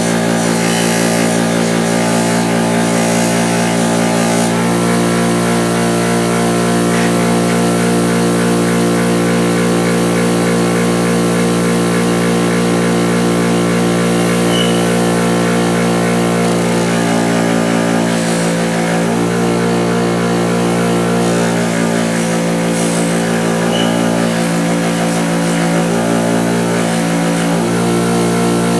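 Bench-mounted wire wheel running steadily on its motor, with the pliers being worked against it; the pitch of the motor shifts a little in the second half as the load changes.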